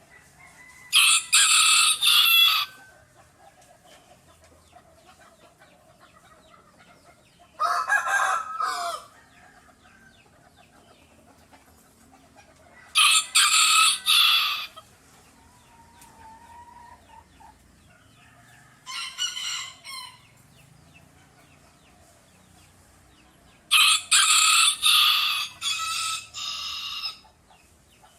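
Free-range caipira rooster crowing: five loud crows, each one to three seconds long, coming about every five to six seconds.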